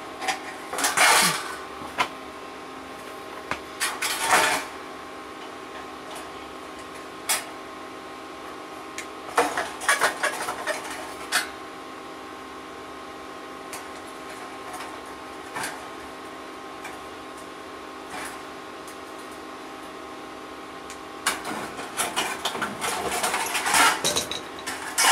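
Sheet metal and a heating-element coil clinking and scraping in irregular bursts as the old element is worked loose from a Samsung dryer's heater housing, over a steady background hum.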